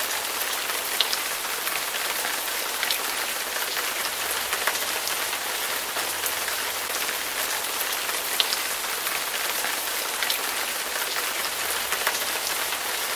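Steady rain falling on a hard surface, with scattered louder drops ticking now and then.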